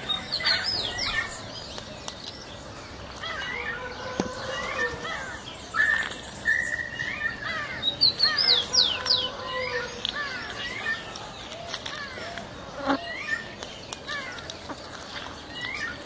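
Several wild birds calling and singing at once. Runs of high falling whistles come at the start and again about halfway through, over short chirps, a held whistle around six seconds in and a few lower whistles.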